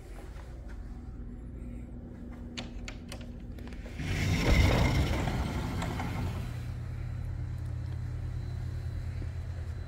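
A vehicle passing by, its sound swelling about four seconds in and fading over the next two seconds, over a steady low hum.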